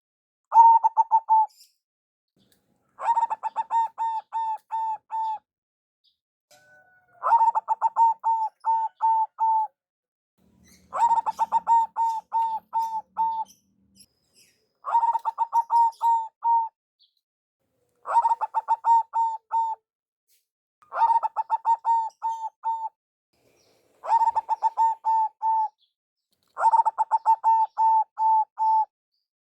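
Zebra dove (perkutut) cooing: nine phrases, each a quick run of about six to ten staccato coo notes, repeated every three seconds or so.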